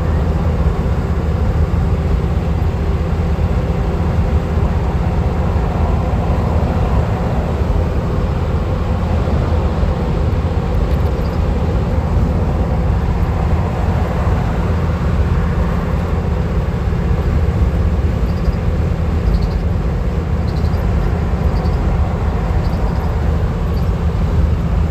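Steady road and engine noise inside a van cruising on the highway, mostly a low rumble that holds even throughout.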